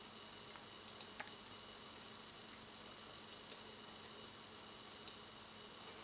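Faint clicking of a computer mouse button, three quick pairs of clicks spaced a second or two apart, over a low steady hiss and hum.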